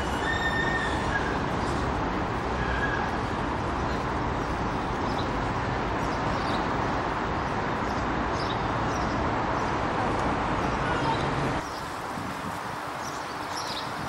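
Outdoor city ambience: a steady hum of distant traffic with short bird chirps over it. The low rumble drops away sharply about twelve seconds in.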